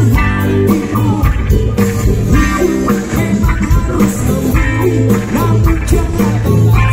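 Live rock band playing through outdoor stage speakers: electric guitars and drums with a singer, loud and steady.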